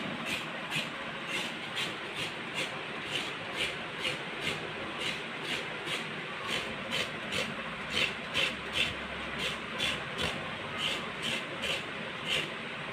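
Fresh coconut being grated by hand on a hand grater: rasping strokes at an even pace of about two a second.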